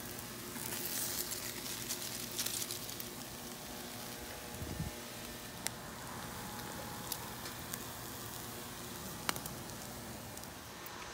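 Food sizzling steadily on a hot flat-top griddle, with a few sharp clicks in the second half.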